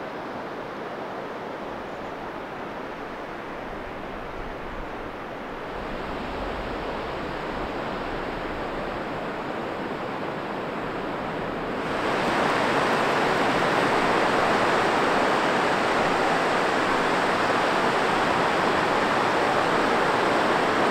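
Ocean surf breaking on a sandy beach: a steady rush of waves that gets louder about six seconds in, and again more sharply about twelve seconds in.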